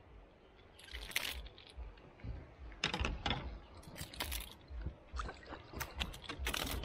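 Irregular clicks, knocks and light water splashing as a hooked peacock bass (tucunaré) is brought to a kayak and handled.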